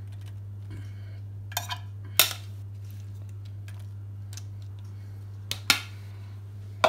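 Metal spoon clicking and scraping against a glass baking dish and tortilla chips as a chopped vegetable topping is spread, with a few sharp clicks about two seconds in and again near the end. A steady low hum runs underneath.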